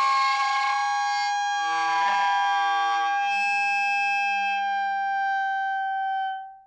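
A metal saw blade singing as dry ice is pressed against it: one loud, sustained whistle-like tone with many overtones, like a lonesome steam whistle. It sags slightly in pitch and dies away near the end.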